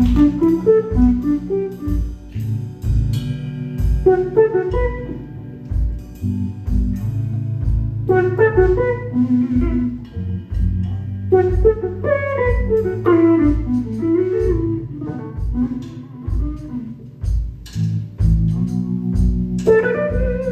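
Live blues band playing an instrumental passage: a melodic lead line with bending notes over a steady, pulsing bass and drums.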